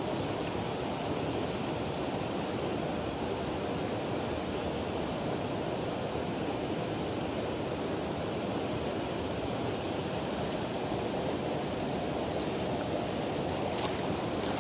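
Steady rush of river water running over rocks, with a few faint clicks near the end.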